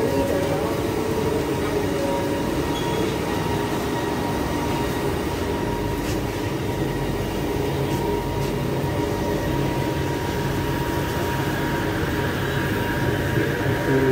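Steady hum of a metro train standing at the platform with its doors open, its car equipment and air-conditioning running, with a thin steady tone over the hum.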